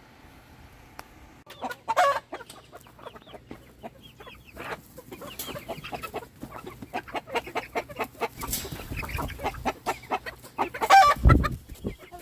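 A flock of chickens clucking, many short calls in quick succession, starting about a second and a half in and growing busier. A loud thump near the end.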